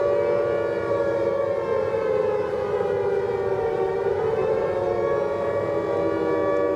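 Civil defense warning siren sounding a steady wail, its pitch wavering slightly.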